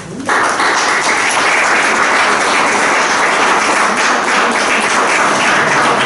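Audience applauding, starting abruptly just after the start and holding steady as a dense patter of clapping.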